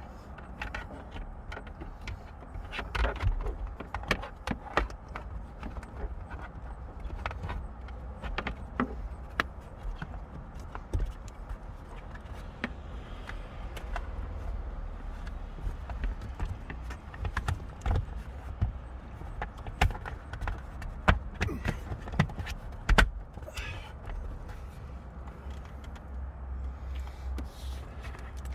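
Irregular clicks, taps and knocks of hands handling plastic trim, a harness box and cable connectors inside a car, with a few sharper knocks around the middle and near the end over a low rumble.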